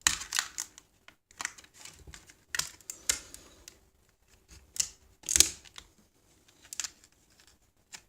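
Rigid plastic clamshell packaging being cut and handled with the sharpened can opener of a Victorinox Swiss Army knife: irregular crackling and scraping in short bursts, with sharp clicks of stiff plastic, the loudest about five seconds in.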